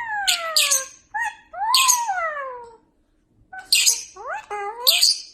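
Parrot calling: harsh, screechy squawks alternating with long, meow-like wails that rise and then slide down in pitch, with a short pause in the middle.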